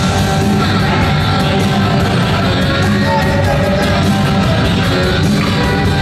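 Rock music with singing and a steady beat, played over a hockey arena's public-address system during a stoppage in play, echoing in the rink.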